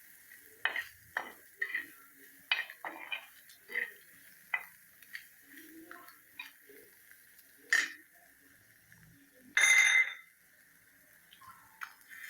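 Cooking spoon stirring boiled egg bhurji in a pan, scraping and clinking against the metal in irregular short strokes. About ten seconds in there is one louder ringing clang.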